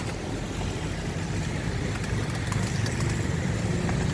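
A motor engine running steadily, a low hum that grows a little stronger near the end, with a few faint clicks.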